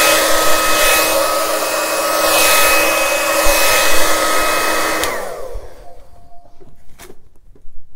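Handleless hair dryer running on its cool setting at its fixed high speed: a steady whine over rushing air that swells and dips as it is moved. About five seconds in it is switched off and the whine falls away as the motor spins down, leaving a few faint clicks.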